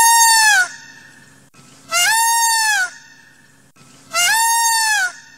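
A honk-like tone sounds three times, about two seconds apart. Each is about a second long and rises at its start and drops at its end.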